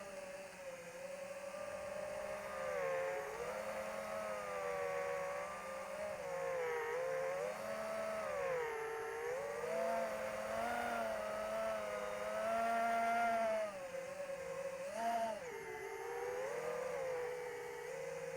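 Electric motor and propeller of an AtomRC Dolphin FPV plane whining, its pitch rising and falling again and again with throttle changes.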